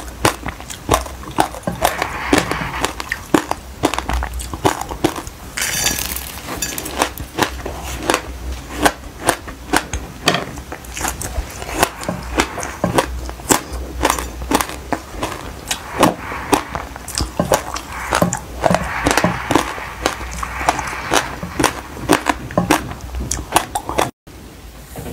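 Close-miked chewing of passion fruit coated in black sesame seeds: a dense run of sharp crunches and crackles. It breaks off suddenly near the end.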